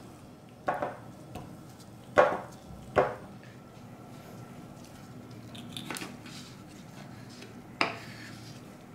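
Five sharp clicks and taps of a metal spoon and small knife against the table and a wooden cutting board while fresh cherries are pitted and cut in half. The loudest taps come about two and three seconds in.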